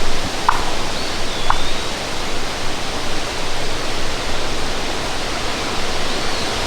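Steady wind rushing over the microphone, with two short sharp notes about a second apart near the start and a faint whistled bird call in the background.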